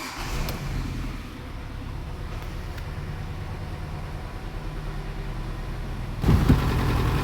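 Hyundai Elantra's petrol engine running at idle, with a steady low drone; about six seconds in it becomes clearly louder. The engine has a cylinder 3 misfire, the owner's scanner pointing at the number 3 injector.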